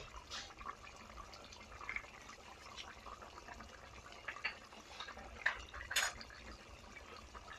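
Chicken and bottle gourd curry simmering in its pot with soft bubbling, broken by scattered light clicks. The sharpest clicks come about five and a half and six seconds in.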